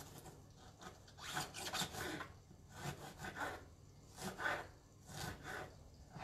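Knife slicing raw artichoke into very thin slices against a wooden cutting board, in about four short runs of rasping strokes.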